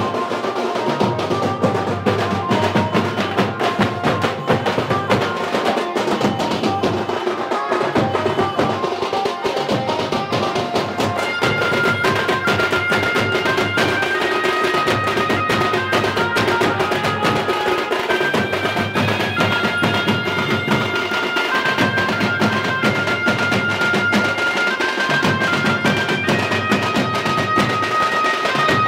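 Procession band music: two-headed barrel drums beaten with sticks in a rapid, dense rhythm, joined about a third of the way in by a reedy wind instrument playing a melody over the drumming.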